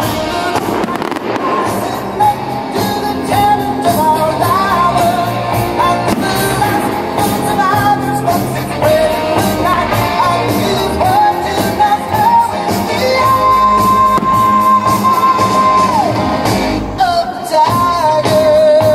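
Rock-pop music with a singing voice, loudest in the mix, with a long held note in the middle. Beneath it, fireworks go off: rockets launch and shells burst in short bangs and crackles.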